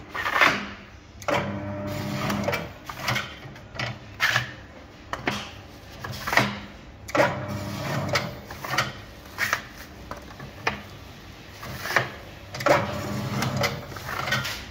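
An electric core cutter at work. Its motor hums in short runs as cardboard label cores spin on the mandrel and are cut into rings. Repeated sharp knocks and clatter come from cores being slid on and off the mandrel and the cutting arm being worked.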